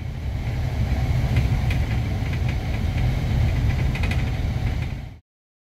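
Cabin noise inside a moving bus: a steady low engine and road rumble with a few light rattles, cutting off suddenly near the end.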